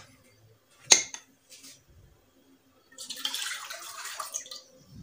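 Milk poured in a steady stream into an empty nonstick wok, the pour running for about a second and a half near the end. About a second in there is a single sharp knock.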